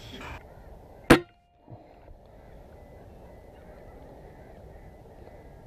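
A single sharp shot from a Kral Puncher Breaker .25 pre-charged air rifle, about a second in, followed by steady low background noise.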